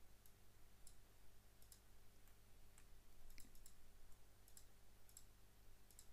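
Faint computer mouse clicks, about a dozen scattered irregularly, some in quick pairs, over near silence.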